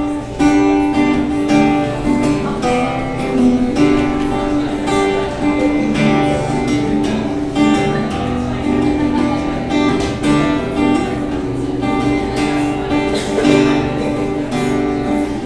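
Acoustic guitar strummed steadily in chords, playing the instrumental intro before the vocals come in.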